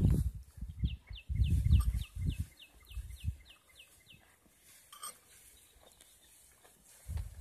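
An Ongole cow grazing: muffled low bursts of grass being torn and chewed. A bird calls over it with a quick run of short descending chirps, about three a second, for a few seconds.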